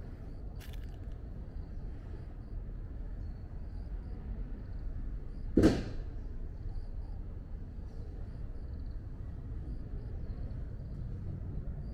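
Outdoor city ambience: a steady low rumble of distant traffic with a faint high insect chirring over it. A single sharp knock about halfway through is the loudest sound.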